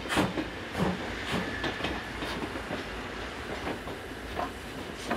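Wheels of passing trains clattering in irregular clacks over rail joints and points, as the steam locomotive 52 3879 rolls by tender first with a passenger train passing behind it.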